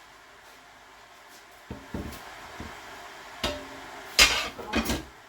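A few light clicks and then several sharp knocks and clatters of kitchen things being handled and set down, the loudest about four seconds in and another just before the end.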